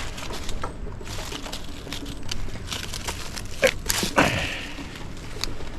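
Rustling and crunching of movement through leaf litter and undergrowth, with scattered small clicks and two sharper knocks near the four-second mark.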